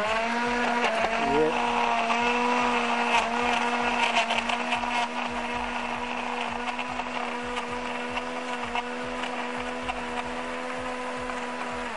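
Countertop blender switched on and blending a milkshake with ice: the motor spins up quickly, then runs with a steady whine.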